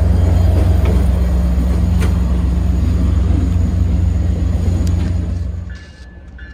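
MBTA commuter-rail diesel locomotive running with a loud, steady low drone as the train moves away, easing off slightly. Near the end the sound drops abruptly to a much quieter background.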